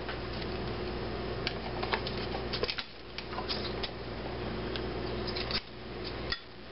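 Metal measuring spoon clicking and scraping against a small nutmeg tin and the rim of a bowl while nutmeg is measured out: scattered light clicks over a steady low hum.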